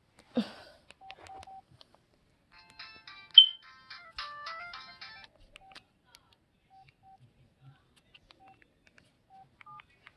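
Feature phone's ringtone playing: a short electronic melody of stepped, beeping notes for about three seconds, with single key-press beeps before and after it as the phone's menus are worked. A brief noise comes just at the start.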